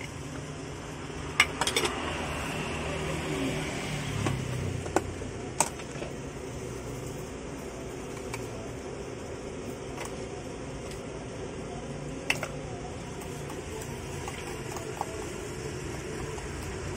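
A few sharp clinks of a spoon and metal pots and a mug knocking together, the loudest about a second and a half in and others near five and twelve seconds, over a steady mechanical hum.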